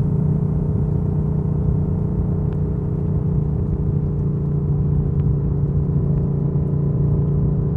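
A Yamaha MT-07's parallel-twin engine idling steadily, holding a constant low hum, with a few faint ticks.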